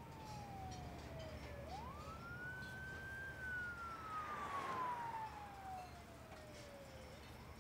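Emergency-vehicle siren wailing slowly over a low, steady city traffic rumble: its pitch falls, rises again about two seconds in, holds briefly, then falls slowly. A swell of rushing noise, the loudest moment, comes around four to five seconds in.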